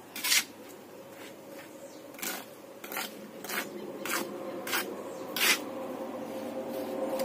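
A mason's trowel scraping and working cement mortar on a concrete slab, in repeated short strokes about every half second to second.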